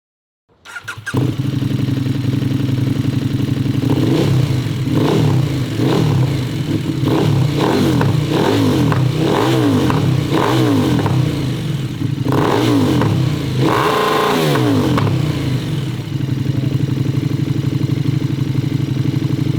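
KTM 1290 Super Duke R's 1301cc V-twin engine through a full titanium Austin Racing exhaust, idling and then blipped repeatedly in short revs. It gives one longer, higher rev about two-thirds through, then settles back to idle.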